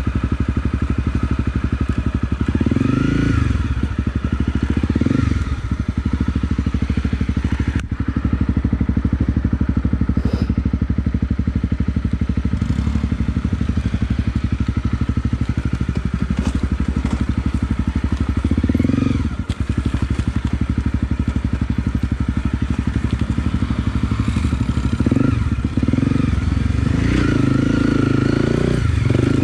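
Honda CRF250 Rally's single-cylinder engine running under load while riding, with the revs rising and falling as the throttle is worked and a few brief dips where it comes off the throttle.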